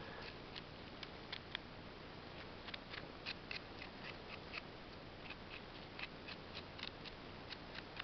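Small knife scraping and trimming the stem of a freshly picked porcini mushroom: a string of short, faint, crisp scrapes at an irregular pace.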